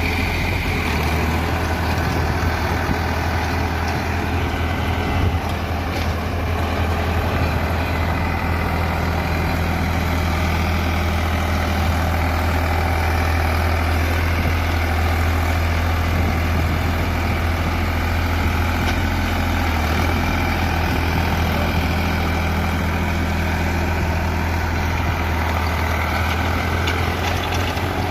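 Indo Farm tractor's diesel engine running steadily, a constant low drone.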